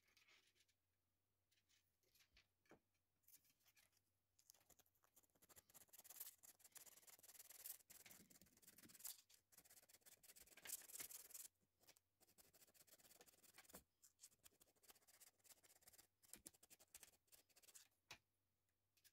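Close-up dry rubbing and scraping along a thin strand of PET 3D-printer filament handled between fingers and a white pad. It starts faint, is densest through the middle, and thins to scattered small scrapes and ticks in the last few seconds.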